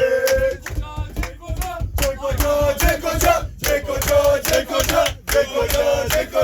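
A group of men chanting and singing together in celebration, with frequent sharp hits throughout.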